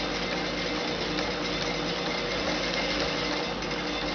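Domestic electric sewing machine running steadily, stitching a seam.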